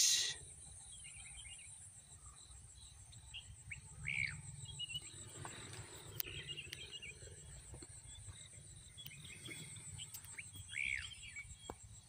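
Insects keep up a steady high-pitched buzz while birds give short, scattered chirps several times, loudest about four seconds in and near the end.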